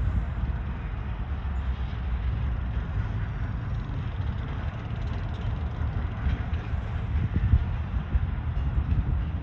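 Canadian Pacific freight train's GP20C-ECO diesel locomotives working in multiple as the train runs away down the line. It makes a steady, even rumble with no horn or sharp sounds.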